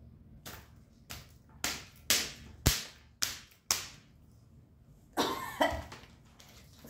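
A black bag strap smacked sharply seven times, about two smacks a second, as if spanking with it; a brief vocal outburst follows about five seconds in.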